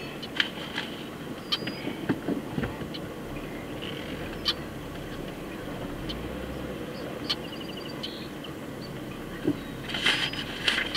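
Steady low rumble of a car rolling slowly, heard from inside the cabin. Scattered sharp clicks and taps run through it, with a louder cluster near the end. A few short high chirps and a brief trill come in around the middle.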